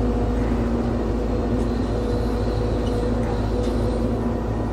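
Excavator engine running steadily at a constant speed, an even low drone with a steady hum.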